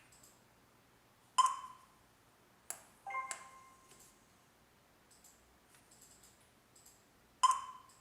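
Clicks and short beeps from the touch keypad of a T90 home alarm panel being pressed. There is a sharp beep about a second and a half in, a click and a couple of short beeps around three seconds in, faint ticks after that, and another sharp beep near the end.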